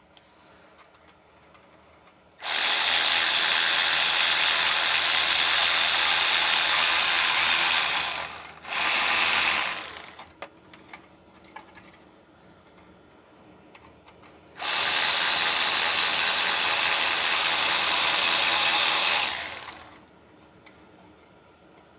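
Handheld power tool running in three goes (about six seconds, a brief second burst, then about five seconds), driving a clamp tight around the catalytic converter's loose heat shield to stop it rattling.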